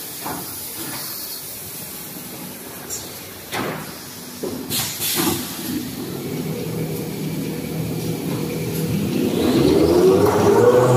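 Toilet paper glue lamination line running: a steady machine hum with a few short knocks, growing louder, and near the end a rising whine as its drive speeds up.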